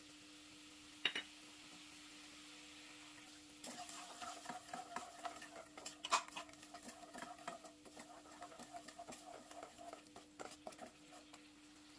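Wooden spatula stirring and scraping tamarind sauce around a nonstick pan, with small clicks and scrapes from about four seconds in. A single knock about a second in. A steady low hum underneath.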